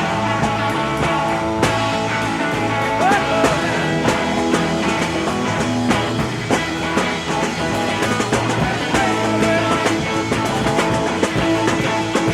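Instrumental stretch of rock music: guitar with a steady drum beat, with no singing.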